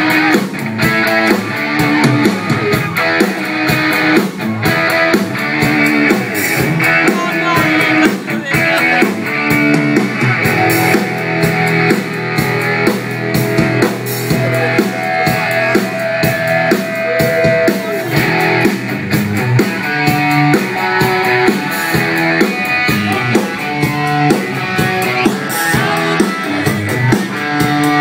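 Live hard-rock band playing an instrumental passage: electric guitar riffing over bass and a drum kit, played loud through the PA.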